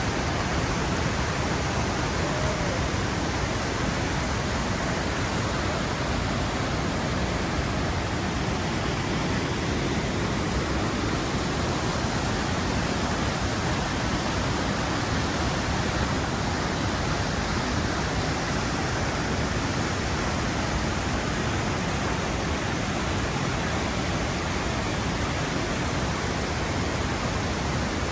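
Steady, unbroken rush of crashing water from a waterfall, even in level throughout.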